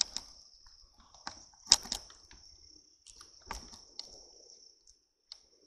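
Steady high-pitched trill of night insects, crickets, with scattered sharp clicks and crunches, the loudest a little under two seconds in and again about three and a half seconds in.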